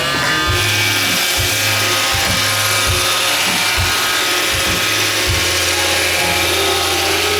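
iRobot Roomba 550 robot vacuum running: its vacuum motor and brushes spin up with a rising whine right at the start, then run steadily as a high whine over a rushing hiss, with irregular low thumps underneath.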